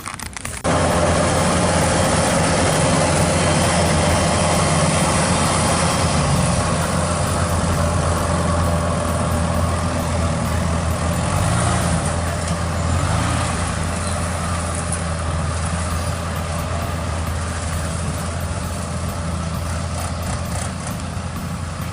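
Heavy farm-machine engine running steadily, cutting in abruptly about a second in and easing a little quieter over the last few seconds.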